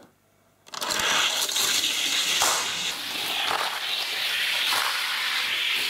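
Die-cast toy cars rolling down a plastic race track, a steady rushing noise that starts about a second in after a brief silence.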